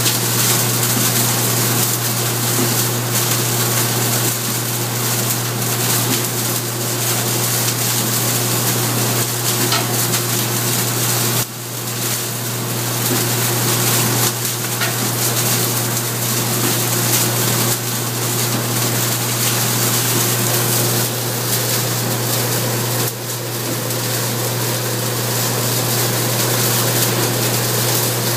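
Straw bale shredder running steadily, its rotating tined drum tearing and flinging straw: a constant rushing noise over a strong low hum, dipping briefly twice.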